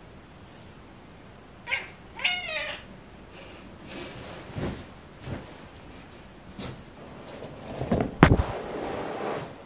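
Domestic ginger cat meowing about two seconds in: a short chirp followed by a meow that falls in pitch. Near the end there is a loud thump, then a rustle.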